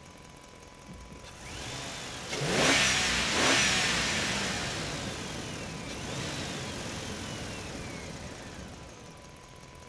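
Vehicle engine revving, rising to two loud sweeps a couple of seconds in, with its pitch gliding up and down, then dying away slowly. A faint steady high tone runs underneath.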